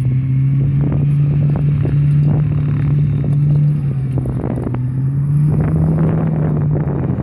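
Engine of an Arctic Cat prototype tracked snow vehicle running steadily, its pitch rising a little and the sound growing rougher about five and a half seconds in, with scattered knocks and clatter on top.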